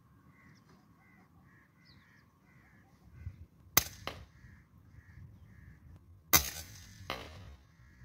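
Scoped air rifle firing: sharp cracks a little under four seconds in and about six and a half seconds in, each followed by a quieter knock, the second crack the loudest. A bird calls over and over in the background, about two short calls a second.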